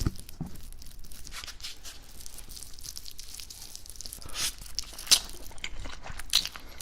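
Close-up eating sounds: crunching and chewing, with many small mouth clicks and a few louder crunches in the second half.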